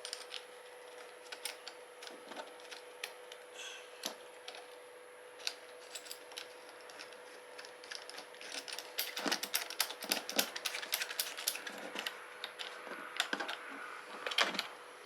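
Light clicks and rattles of plastic pressure-washer fittings and parts being handled and pushed into place, sparse at first and growing busier about two-thirds of the way through, over a faint steady hum.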